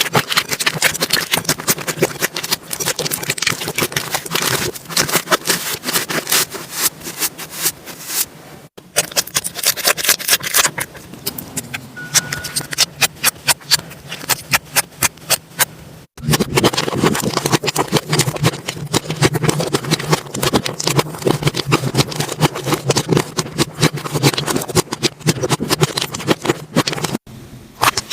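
Slime being squished and poked by hand, giving dense, irregular crackling and popping clicks. The sound cuts abruptly about 9, 16 and 27 seconds in, where one slime clip gives way to the next.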